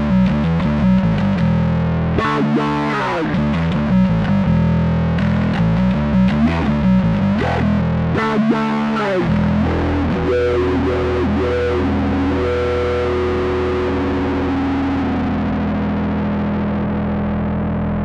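Electric bass played through the Zoom B1X Four's 'WahDist' patch: a distorted bass line with the wah swept up and down by the expression pedal. From about ten seconds in, a long distorted note is held and left ringing.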